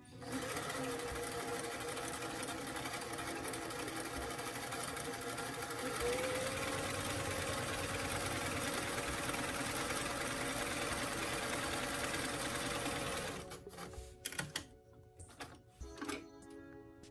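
Electric sewing machine running steadily as it sews a small zigzag stitch along fabric, its motor hum stepping up a little in speed about six seconds in. It stops a few seconds before the end, leaving a few light clicks and taps.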